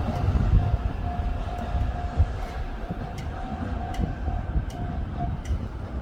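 JR East E231- and E233-series electric train running with a low rumble and scattered clicks. A steady mid-pitched tone sounds over it from about half a second in until about five seconds in.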